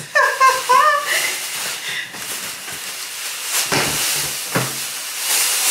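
Rustling and scraping of the packaging being handled and pulled away from a new microwave oven, with three quick knocks about four seconds in.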